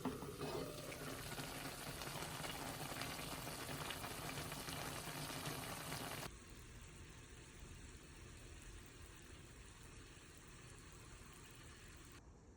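Food cooking in a pan on the stove, a steady dense hiss, which drops suddenly about six seconds in to a much quieter steady hiss.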